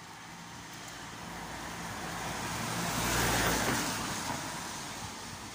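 A car driving past on a wet road. The tyre hiss on the wet tarmac and a low engine hum swell to a peak about three and a half seconds in, then fade.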